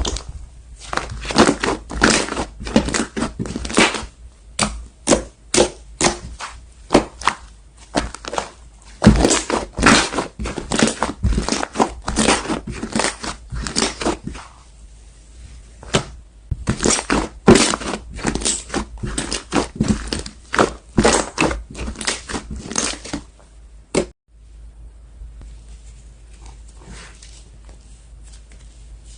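Slime being squished, pressed and poked by hand, giving dense runs of crackling, popping clicks. These stop abruptly about three-quarters of the way through, leaving only a few faint pops.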